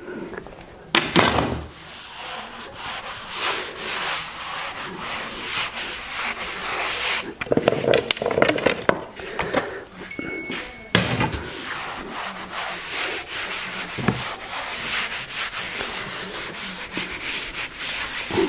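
Hands sweeping and rubbing across a sheet of kraft-backed oak veneer, pressing it down onto a glued panel. A rough, continuous friction hiss starts about a second in, with a few sharp clacks from thin wooden sticks being pulled out and handled.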